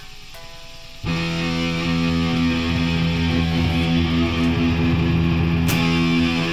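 Distorted noise-music drone: a low hum gives way suddenly, about a second in, to loud held tones over a hiss of noise, with a sharp hit near the end.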